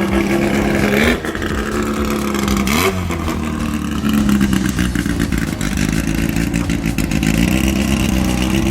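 The restored 1972 Fiat Abarth's engine running under load as the car drives, its note falling sharply and climbing again about three seconds in, like a gear change, then holding steady.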